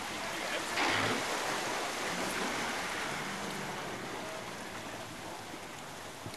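Water rushing and splashing around an off-road vehicle wading in the river. It swells about a second in and slowly dies away, with the engine running faintly underneath.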